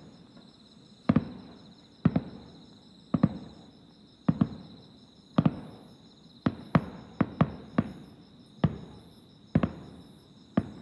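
Aerial fireworks shells bursting in the distance: sharp bangs about once or twice a second, many in quick pairs, each trailing off in a rolling echo.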